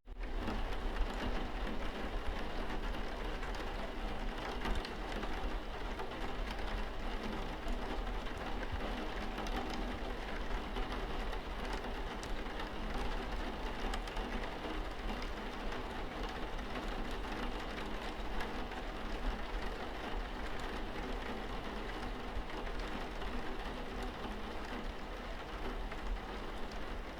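Steady rainfall, an even hiss of rain with scattered individual drop ticks.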